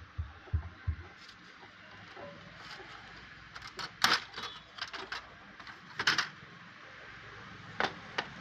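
Hard plastic clicks and knocks from a Brother laser printer's drum unit and toner cartridge being handled: a few soft low thumps at the start, then sharp clicks in clusters in the middle and two more near the end.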